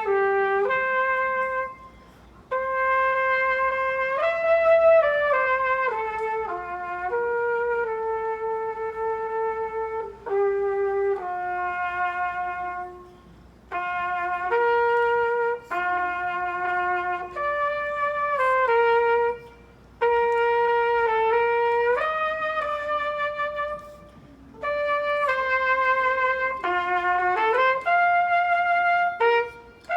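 A solo brass instrument plays a slow hymn tune one note at a time. It plays in long phrases of held notes and steps in pitch, with short breaks for breath between them.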